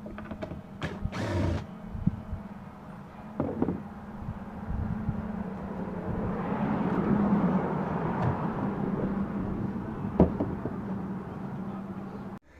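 A panel cover being worked loose and slid out, with a few knocks and clicks and a long scraping rush in the middle, over a steady low hum.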